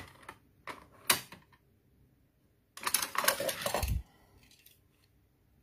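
Plastic clicking and rattling from a Tomica rotating parking garage toy's spinning platform and spiral screw mechanism: a few sharp clicks at first, then about a second of dense clattering that ends in a low thump.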